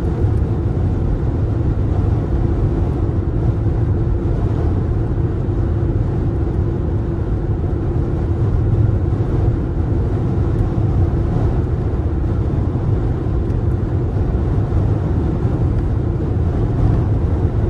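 Steady low rumble of a car's tyres and engine at highway cruising speed, heard from inside the cabin.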